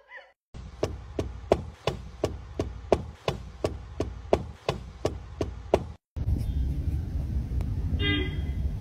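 A regular series of sharp knocks, about three a second, over a low rumble, stopping suddenly about six seconds in. After that comes a steady rumbling hiss with one short, high-pitched call near the end.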